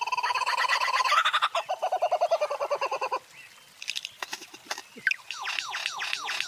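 Bird calls: a rapid pulsing, gobble-like call for about three seconds, then a short lull with a few clicks, then a fast series of quick falling notes.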